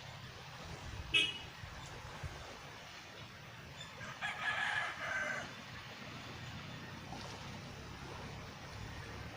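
A rooster crowing once, a call lasting about a second and a half starting about four seconds in, over a steady low rumble. A short sharp call comes just after a second in.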